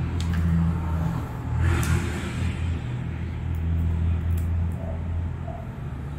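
Low, steady engine-like rumble that eases after about five seconds. A rustle and a few light clicks of packaging being handled sit over it.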